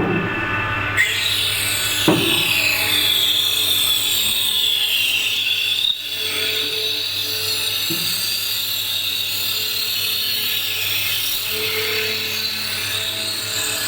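Rattan rounding machine running with a steady motor hum. About a second in, its cutter head starts shaving a cane pole being fed through it, a continuous hissing, rasping cut, with a few short knocks near the start.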